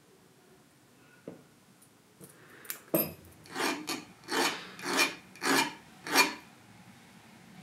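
Hand file rasping on a small metal part in about six quick strokes, starting about three seconds in, taking it down because it didn't fit.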